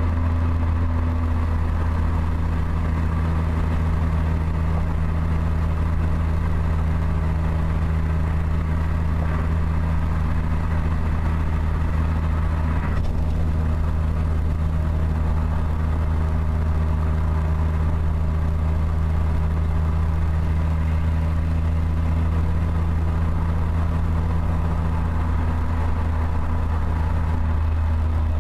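Steady low drone of a car being driven: engine and road noise, unchanging throughout.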